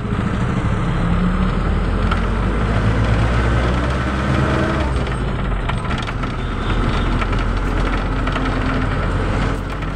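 Engine and road noise heard from inside a moving vehicle: a steady low engine hum whose pitch shifts a little, with scattered rattling clicks.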